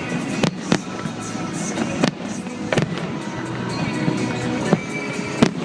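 Fireworks going off: about six sharp bangs at irregular intervals, over continuous music.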